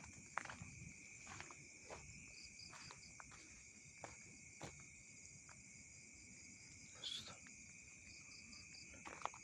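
Faint night chorus of crickets and other insects: a steady high trill with short chirping pulses now and then. A few soft clicks are scattered through it.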